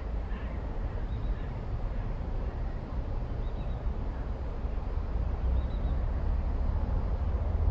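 Steady low outdoor rumble, growing a little louder near the end, with faint high bird peeps about every two seconds.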